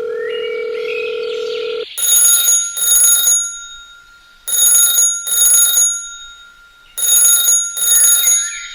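A steady electronic beep for about two seconds, then a bell-like ring tone sounding in pairs of rings, each pair repeating about every two and a half seconds, like an alarm or ringtone.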